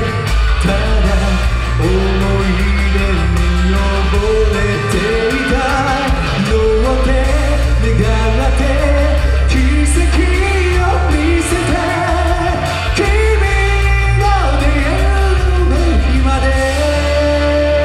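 A man sings live into a handheld microphone over loud amplified backing music with a steady bass line.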